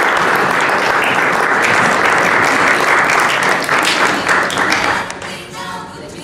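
Audience applause, loud and dense, fading away about five seconds in. A voice comes in faintly near the end.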